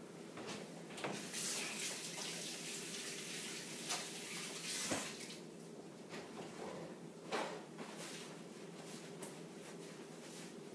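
Water running from a kitchen faucet into the sink as hands are washed under it, stopping about five seconds in. After it come a few light knocks and rustles as the hands are dried.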